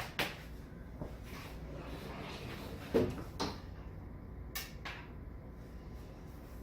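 A few sharp clicks and knocks from the desktop computer being handled and switched on, over a steady low hum. There is a sharp click just after the start, a louder knock about three seconds in, and two quick clicks a second and a half later.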